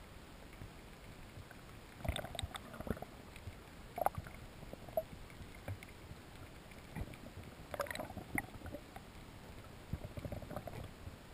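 Faint underwater hiss, with scattered short knocks and scrapes: a cluster about two seconds in, single knocks near four and five seconds, another cluster near eight seconds and a run of small clicks near the end.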